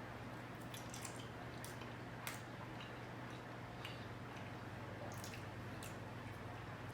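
Faint wet clicks and smacks of a person chewing a mouthful of mac and cheese, scattered and irregular over a steady low hum.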